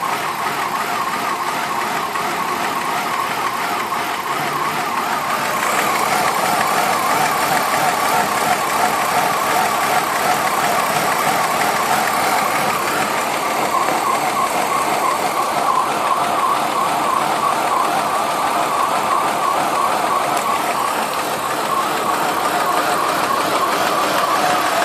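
2002 Ford Escape engine idling roughly, its note wavering unevenly as it goes into one of its rough-idle fits, a little louder from about five seconds in. The scanner reads a cylinder 1 misfire (code P0301) and a too-rich condition; the owner wonders whether a kinked vacuum hose or a dislodged PCV valve is to blame.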